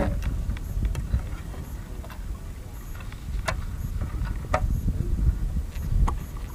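Wind rumbling on the microphone over open water, with a few sharp clicks scattered through it.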